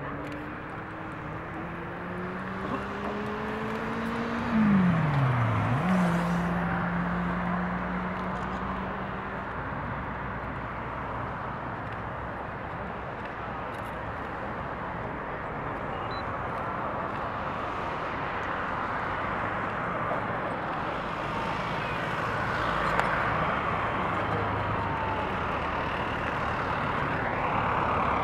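Steady jet engine noise from a taxiing Airbus A380's Rolls-Royce Trent 900 engines, growing slightly louder near the end as the aircraft turns. In the first ten seconds a separate engine tone rises, drops sharply about five seconds in, then holds steady.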